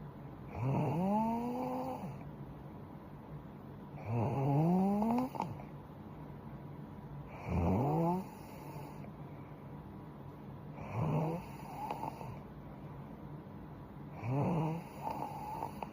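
A young woman snoring in her sleep: five snores about three and a half seconds apart, each one rising in pitch as it goes.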